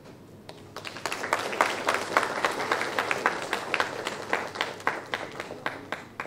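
Audience applauding: a burst of many hands clapping that starts about a second in, holds steady, and thins out near the end.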